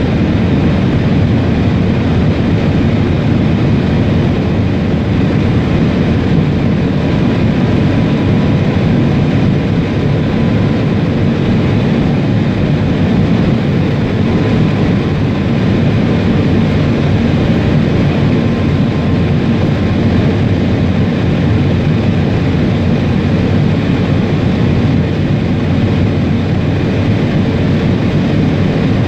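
Shanghai Transrapid maglev train running along its guideway, heard inside the driver's cab: a loud, steady, even rumble with no rhythm or clatter.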